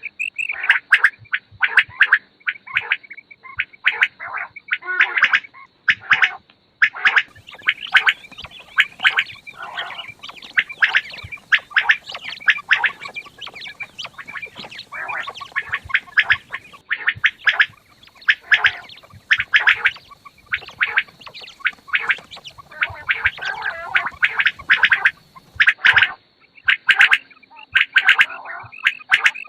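Quails calling: a dense, nearly continuous run of short, sharp calls, with a faint steady high tone underneath.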